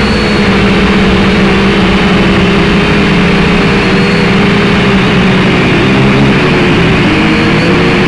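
Drone's battery-powered motors and propellers whirring loudly, heard close up from the camera mounted on the drone: a steady hum whose pitch wavers slightly from about six seconds in as the craft manoeuvres.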